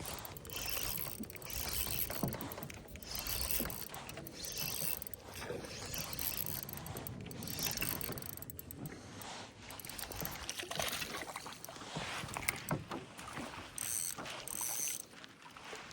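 Fishing reel being cranked in uneven spells as a small hooked fish is reeled in.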